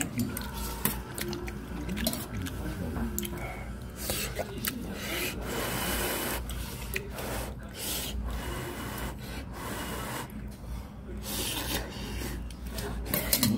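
A person eating spicy fish stew close to the microphone: irregular slurping, chewing and rasping mouth noises.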